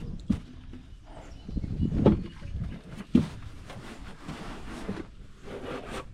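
A small boat being pushed off a riverbank: a few knocks and bumps from the hull, the strongest about two and three seconds in, with scraping and water splashing between them.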